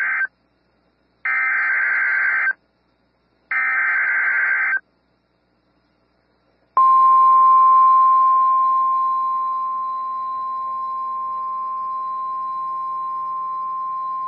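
Emergency Alert System SAME header: the tail of one buzzy digital data burst and then two more, each about a second long, the three header bursts of a NOAA Weather Radio alert. After about two seconds of silence the single steady 1050 Hz weather radio warning tone starts, louder at first and then holding level.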